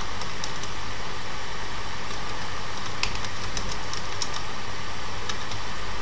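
Steady hiss and low electrical hum from the recording setup, with a scattering of light clicks from computer keyboard keys being typed.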